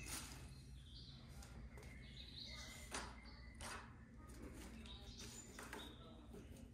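Near silence: faint taps and rustles of cats pouncing after a wand toy on a hard floor, with a few faint high chirps.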